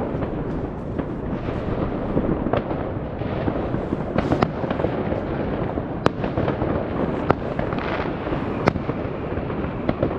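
New Year's fireworks going off all around as a continuous crackling din, with many sharp bangs from exploding shells; the loudest come about four, six, seven and nine seconds in.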